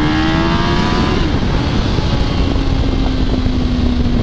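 2006 Yamaha R1's inline-four engine accelerating, its pitch rising for about a second, then dropping to a lower, steady note that eases slowly down, over heavy wind noise on the helmet-mounted microphone.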